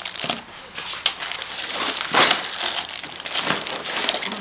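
Small hard objects and packaging being handled: an irregular run of clicks, clinks and rustling, with the loudest clatter about two seconds in.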